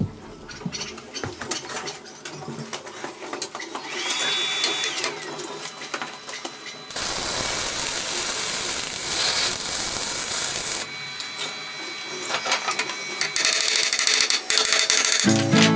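Metal-shop power tool noise during fabrication work: a short high whine about four seconds in that drops away as it stops, then a steady noisy stretch of a few seconds, and another near the end, with scattered clicks and knocks between.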